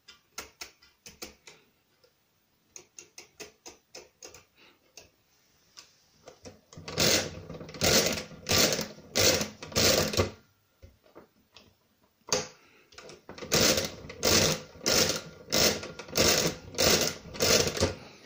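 Brunsviga pinwheel mechanical calculator being worked by hand. First come light clicks as the setting levers are moved. Then the hand crank is turned over and over in two runs of several clattering turns, about two a second, with a short break and a knock between them as the carriage is shifted.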